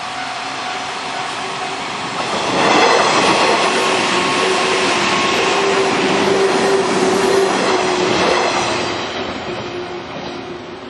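JR West 103 series electric commuter train passing close by a level crossing. It gets loud suddenly about two seconds in, with a steady whine under the rail noise, and fades away over the last couple of seconds.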